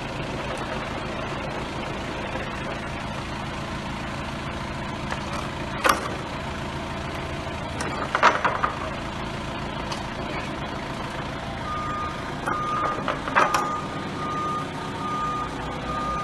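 Forklift truck engine running steadily, with several sharp metal clanks as the slip-on fork shoes are set down on the floor. About twelve seconds in, the reversing beeper starts, beeping evenly at one pitch as the truck backs away.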